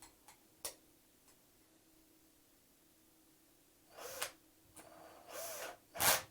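Small hand-tool work on screws: a few light clicks, then from about four seconds in several short scraping noises, the last the loudest.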